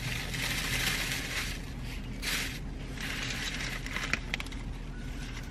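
Paper food wrapper rustling and crinkling as a taco is wrapped and handled, in a long stretch and then two shorter bursts, with a few small clicks near the end.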